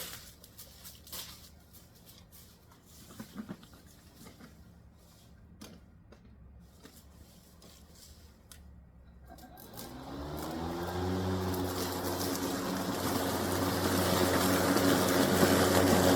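A few light clicks and knocks, then about ten seconds in a Ryobi 40V battery lawn mower's motor spins up with a rising tone and settles into a steady hum that grows louder toward the end.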